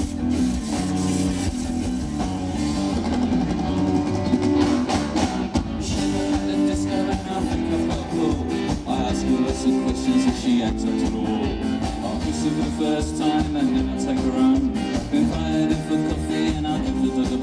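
Rock band playing live: electric guitars, keyboard and drum kit, with a lead vocal over them.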